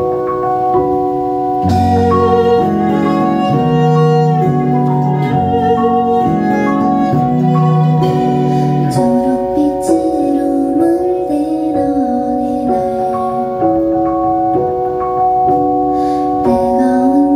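Live song on an electric keyboard: a repeated, bell-like pattern of held notes, filled out with lower notes and more instruments from about two seconds in. From about ten seconds in a woman's voice sings over it.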